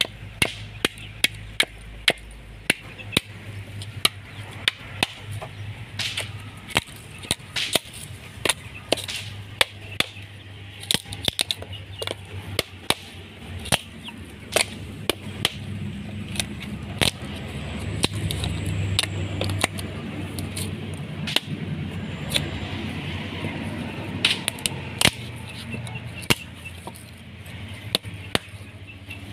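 Repeated sharp taps and cracks, irregular at about one to two a second, as a hand-held metal coconut shell opener is jabbed and levered between the hard shell and the meat, breaking the shell off in pieces.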